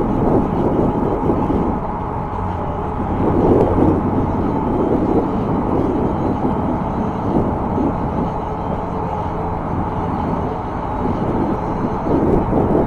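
Steady rushing noise of riding an e-bike along a paved path at speed: wind on the microphone and tyres on the asphalt, loud and unbroken.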